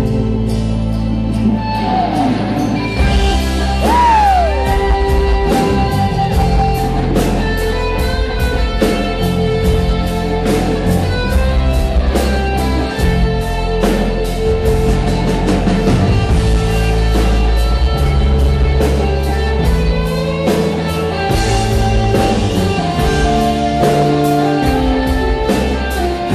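Live rock band playing an instrumental passage, an electric guitar on a red semi-hollow body leading over drums, bass and keyboards, heard from the audience in a concert hall. A note glides down in pitch about four seconds in.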